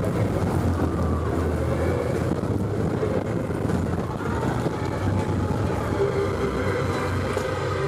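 Space Mountain roller coaster train rumbling steadily along its track, heard from on board.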